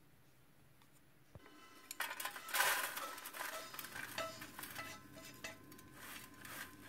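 Dry, shredded vegetarian meat floss being tipped into a stainless steel tray and spread with chopsticks: crisp rustling of the shreds, with the chopsticks scraping and clicking on the metal. It starts about two seconds in, after a faint opening with a single click.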